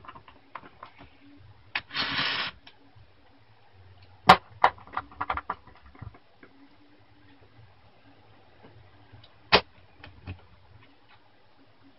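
Handling noise from a plastic laptop on a desk as it is moved and pressed back together: a short scraping rustle about two seconds in, then scattered sharp plastic clicks and knocks. The loudest knocks come about four seconds in and again near ten seconds.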